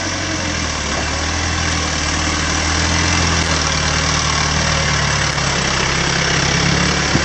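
Isuzu Trooper 4x4's engine running steadily under load as it crawls up a dirt track and passes close by, growing a little louder and rising slightly in pitch near the end, over a steady hiss.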